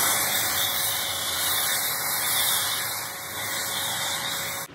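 Pressure-washer spray hissing steadily against a car's side panels, then cutting off abruptly near the end.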